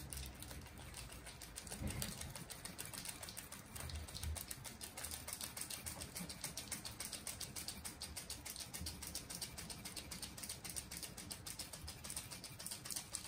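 Block of Parmesan cheese being rubbed on a handheld metal grater: quick, even scraping strokes repeated without a break, faint.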